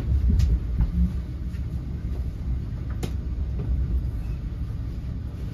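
Inside the cabin of a moving NJ Transit Multilevel commuter coach: a steady low rumble from the wheels and running gear on the track, with a couple of sharp clicks, the clearest about three seconds in.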